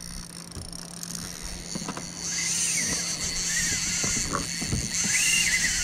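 Spinning reel whirring in two spells as a hooked largemouth bass is reeled in, over a steady low hum.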